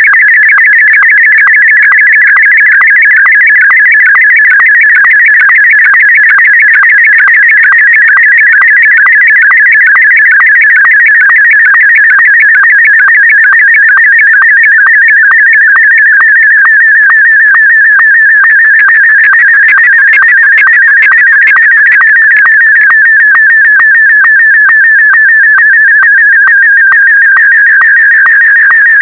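Slow-scan television (SSTV) signal in Martin M1 mode: a loud, rapidly warbling electronic tone that jumps in pitch as it encodes the picture's brightness, broken at a steady rhythm by short sync blips as each scan line is sent.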